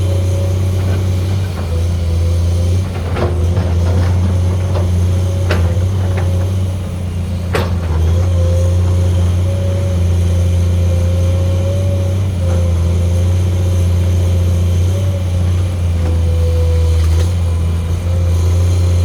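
Excavator running steadily while digging, with a wavering drone and a few sharp knocks in the first half.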